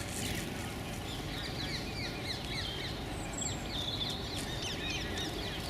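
Many short chirping calls of small birds overlapping in a busy chatter, over a steady low rumble of background noise.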